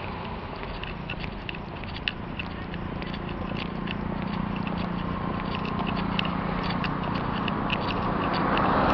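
Road traffic, with an approaching vehicle's engine hum growing steadily louder. Scattered short, high ticks sound throughout.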